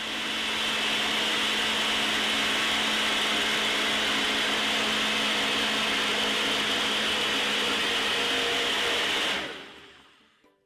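Countertop blender running at a steady speed, blending beetroot, ginger, lemon and ice in water. It builds to full speed in the first second, then winds down and stops near the end.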